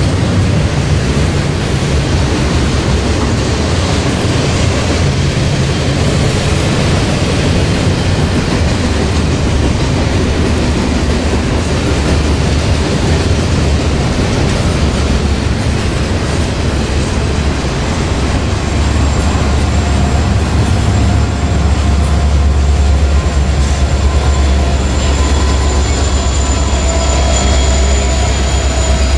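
Norfolk Southern freight train rolling past: a loud, steady low rumble of car wheels on the rails. A thin high-pitched squeal joins about two-thirds of the way in.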